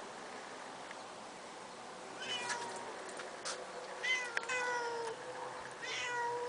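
Cats yowling at each other in a face-off: long, drawn-out low threat yowls that begin about two seconds in, come in three bouts and grow longer, the last held for about two seconds.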